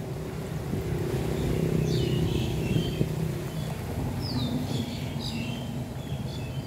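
Small birds chirping in short high notes, with one quick falling whistle, over a steady low hum. There is a brief knock about three seconds in.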